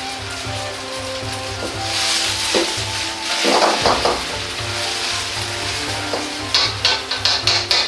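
Somen noodles sizzling in hot oil in a wok as they are pan-fried crisp. A louder rush of sizzle comes around three and a half seconds in as the noodles are moved. Near the end there is a quick run of clicks, about five a second, as chopsticks tap and scrape against the wok.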